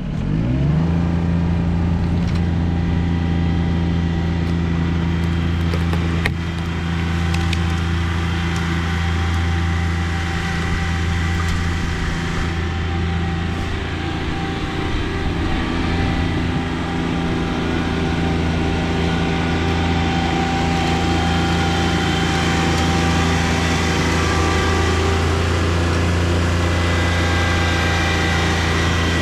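John Deere 2320 compact tractor's three-cylinder diesel engine revving up at the start, then running steadily at high revs while it drags a large pine trunk piece.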